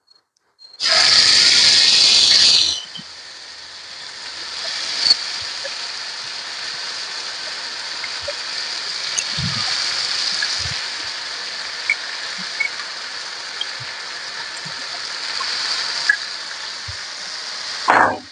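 Marinated chicken drumsticks going into hot oil: a loud burst of sizzling for about two seconds, settling into a steady frying sizzle with scattered small pops. A second short, loud burst of sizzling comes near the end.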